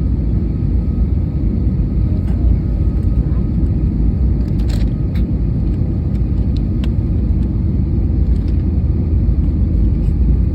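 Airliner cabin noise on the landing approach: a steady, loud low rumble of engines and airflow, with a faint steady whine and a few light clicks around the middle.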